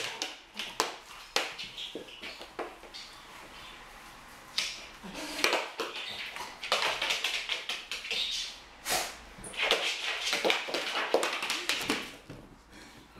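Young Rhodesian Ridgeback play-boxing: claws clicking and skittering on a wooden parquet floor and paws slapping at hands, with several short noisy bursts of sound from the dog between quieter moments.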